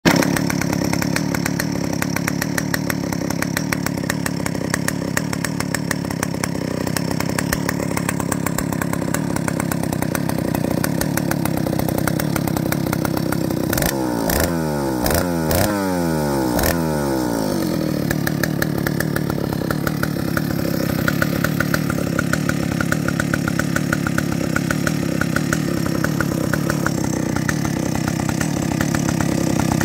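Vintage Stihl 075 AV 111 cc single-cylinder two-stroke chainsaw idling steadily. About halfway through it is revved in a few quick throttle blips, then settles back to idle.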